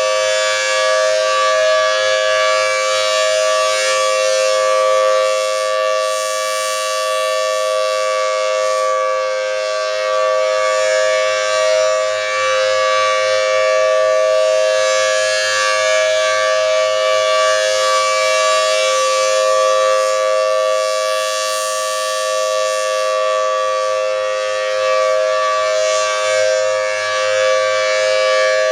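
Federal Signal Thunderbolt 1000T B-Series outdoor warning siren sounding a steady signal, holding a two-note chord at full pitch without winding up or down. Its loudness swells and dips slightly every few seconds.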